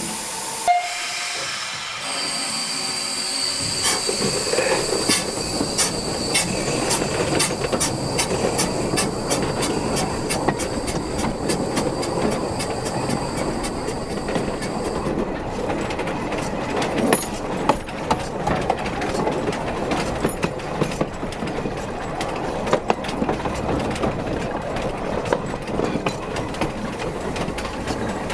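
Steam locomotive setting off while shunting, heard from low beside the rails. For the first dozen or so seconds a steady steam hiss runs with regular clicks that come faster and faster. Then the hiss stops and the wheels rumble and clatter along the track.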